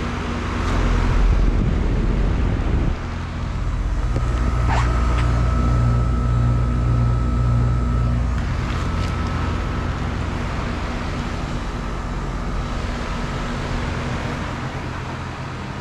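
2015 four-ton Goodman GSX14 air conditioner condensing unit starting up and running: the compressor's deep hum swells about a second in and settles to a steady run under the rush of the condenser fan.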